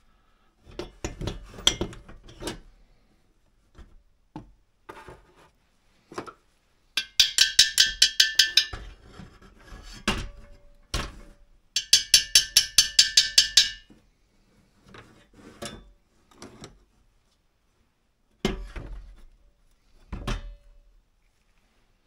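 Metal parts of a diesel heater being handled and taken apart on a workbench: scattered clunks and knocks. Twice, a run of rapid ringing metallic taps at about eight a second lasts roughly two seconds, and these are the loudest sounds.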